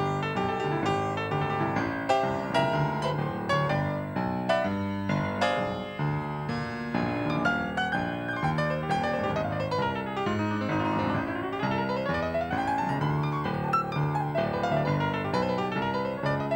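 Upright piano played solo, a jazz standard with chords over a moving bass line. About ten seconds in, a fast run sweeps down the keyboard and back up.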